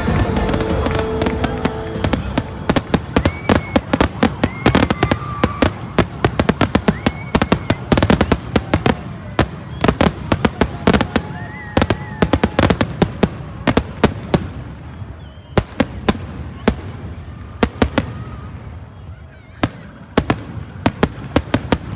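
Fireworks going off in a rapid, irregular string of sharp bangs and crackles, thinning out in the second half. Music fades out in the first couple of seconds.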